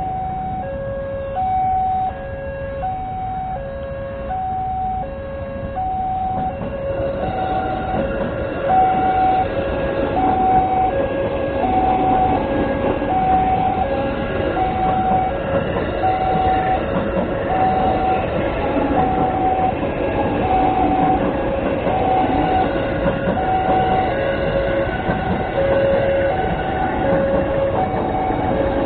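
Railway level-crossing warning signal ringing a two-note ding about once a second while a train passes over the crossing, its rumble growing louder from about seven seconds in.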